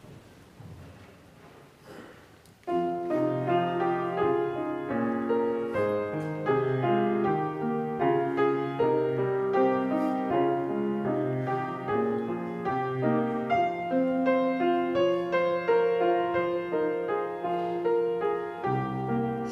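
After a couple of seconds of quiet room tone, a piano comes in suddenly and plays chords under a melody line: the introduction to a hymn.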